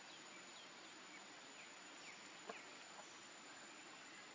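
Near silence: faint outdoor background hiss with a thin steady high tone, a few faint short chirps, and one soft click about two and a half seconds in.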